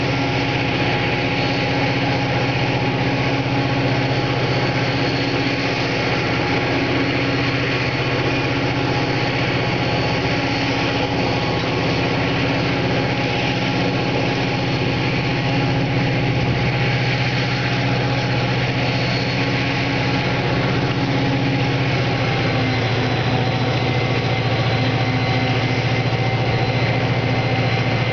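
Diesel freight locomotives running with a steady, even engine drone as the train moves slowly through the yard. The engine note shifts slightly lower a little past two-thirds of the way through.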